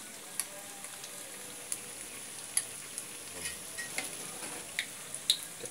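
Battered fritters deep-frying in a wok of hot oil: a steady sizzle with sharp spitting pops about once a second.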